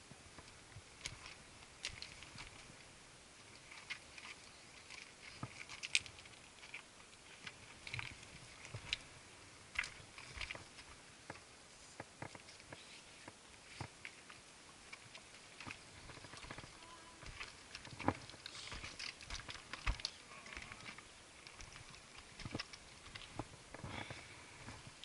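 Footsteps of hikers scrambling over rock: boots scuffing and knocking on stone and loose grit, irregular clicks and crunches with a few sharper knocks.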